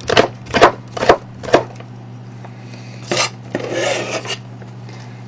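Kitchen knife chopping cucumber into thin strips on a plastic cutting board: four sharp chops about two a second, then another knock around three seconds in, followed by a brief scraping rustle.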